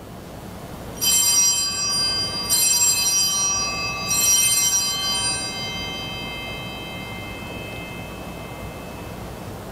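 Altar bell struck three times, about a second and a half apart, each stroke ringing on and slowly dying away. It marks the elevation of the chalice at the consecration.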